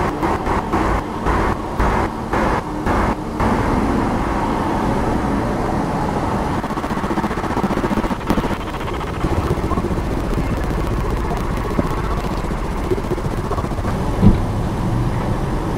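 City street traffic noise: a steady rush of passing cars, choppy for the first few seconds, with one short thump near the end.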